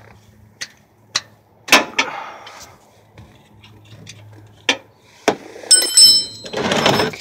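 Metal clicks and knocks of a combination wrench loosening a bolt on the underside of a Chevy truck. About six seconds in comes a sharp metallic clink that rings on, followed by a loud rush of noise.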